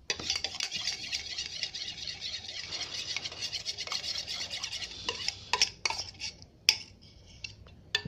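A utensil stirring clear and white glue together in a container: fast, continuous scraping and clinking against its sides, giving way after about five seconds to a few scattered taps.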